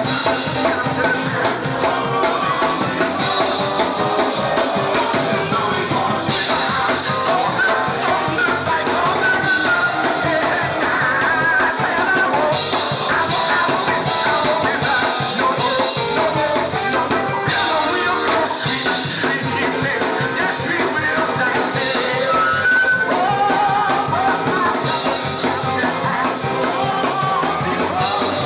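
Live church praise music: a man sings lead through a handheld microphone over an amplified band with drums, without a break.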